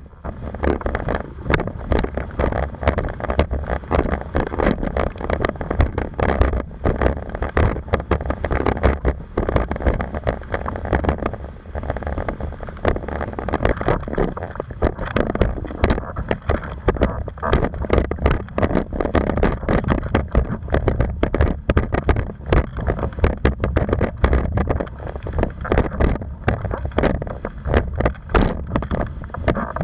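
Wind buffeting the microphone and water rushing against a Goya FXR 125 windsurf board as it sails fast over chop. There is a heavy low rumble and frequent sharp slaps of water on the hull. The sound jumps up about half a second in as the board gets going.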